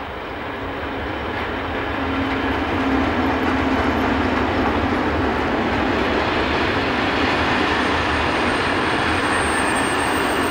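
Freight train hauled by two SBB electric locomotives passing at speed: a steady rumble of wagon wheels on the rails that builds over the first few seconds and then holds.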